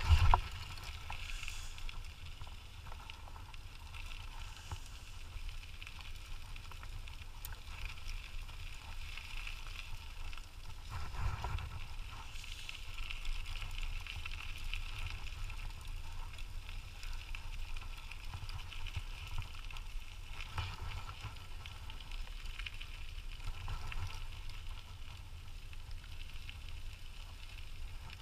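Steady low rumble of a dog scooter rolling along a trail, with a faint hiss of wheels and wind over it.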